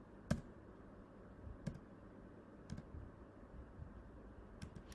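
A handful of separate computer keyboard key presses, the first the loudest, with quiet room tone between them.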